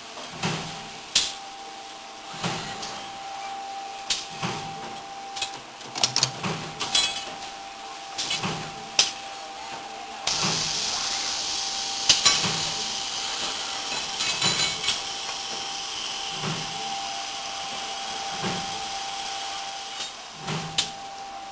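CNC electric tube bending machine and its loading robot at work: knocks and clicks with a low thump about every two seconds over a steady whine. About halfway through, a steady hiss starts and runs for about ten seconds.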